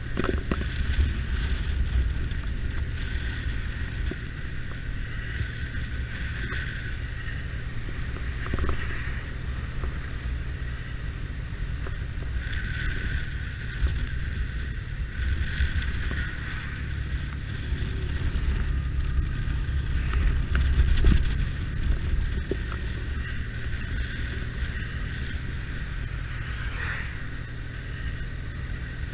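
Motorcycle engine running while riding on the road, a steady low rumble with a hiss that swells and fades.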